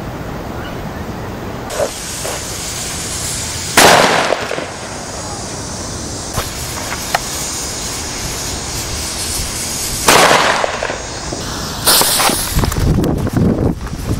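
Fireworks going off: two loud bangs about six seconds apart, each with a trailing rumble, a few small pops between them, and a rapid run of crackling bangs near the end.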